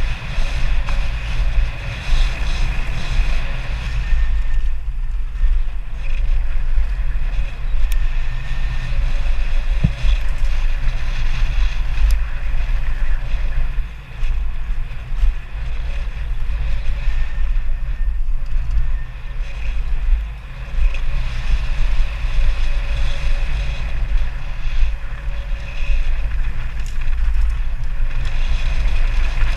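Wind buffeting an action camera's microphone over the steady low rumble of a mountain bike rolling fast down a dirt trail, with a few sharp rattles and clicks from the bike; the noise eases briefly twice.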